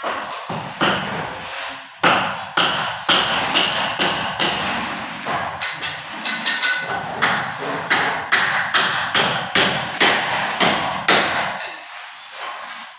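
Steady hammering, with sharp blows at about two or three a second that stop about a second and a half before the end.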